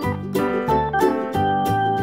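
Upbeat background music with a steady beat: plucked strings and keyboard playing a bright children's tune.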